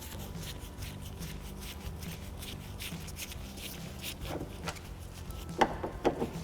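Phillips screwdriver backing out the screws of a car door latch: faint clicks and scrapes of the tool in the screw heads against a low steady background hum, with a few louder knocks near the end.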